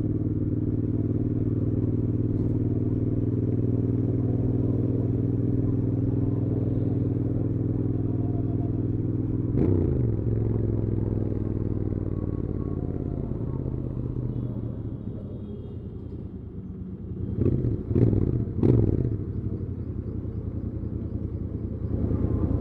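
Stock Royal Enfield Interceptor 650 parallel-twin engine running steadily at cruise. About ten seconds in it drops in pitch as the bike slows, and it runs quieter. Near eighteen seconds come a few quick sharp revs, and the engine picks up again near the end.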